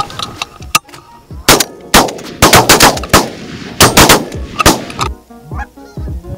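A rapid volley of shotgun shots from several hunters, more than a dozen cracks over about four seconds, mixed with goose honking. The shooting stops about five seconds in and the honking goes on.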